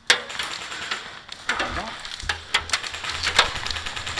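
Rustling and irregular light clicks and knocks of an airsoft rifle and its mounted cameras being handled and swung around, with a low hum coming in about halfway.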